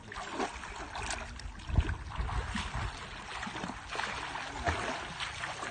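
Water splashing and lapping as swimmers paddle close beside an outrigger boat, in small irregular splashes.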